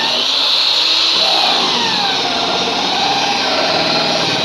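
Electric drill running under load as a freshly sharpened twist drill bit cuts through a workpiece, the motor's pitch wavering as the bit bites. The bit cuts quickly and cleanly, the sign of a well-sharpened edge.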